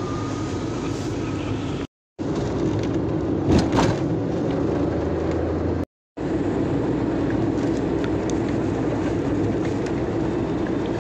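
Steady road and engine noise inside a moving car, broken twice by short gaps of silence. A brief louder thump comes a little over 3.5 seconds in.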